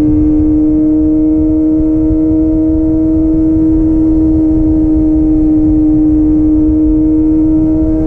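Kawasaki ZX-25R's 250 cc inline-four engine, fitted with a DX Generation Pro Race aftermarket exhaust, running at steady high revs while riding. The note holds one pitch throughout, over a low rumble of wind and road noise.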